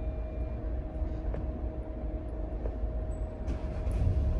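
Car running, a low steady rumble heard from inside the cabin, with a faint steady hum; it grows a little louder near the end.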